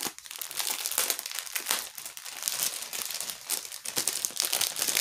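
Plastic film on a diamond painting canvas crinkling as the canvas is handled and spread flat, a continuous run of sharp crackles.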